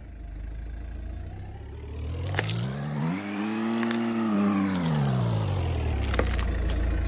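Car tyre rolling over and crushing plastic toys, with sharp plastic cracks and snaps three times. Under them the car's engine rises and then falls in pitch as it pulls the car slowly forward.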